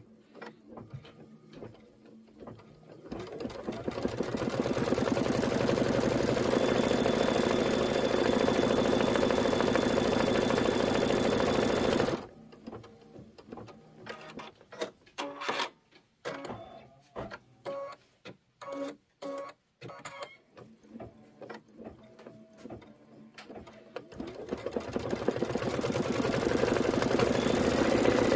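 Embroidery machine stitching out a design. Fast, steady stitching builds up about three seconds in and stops abruptly about twelve seconds in. It gives way to scattered clicks and short bursts of stitching, then runs up to full speed again near the end.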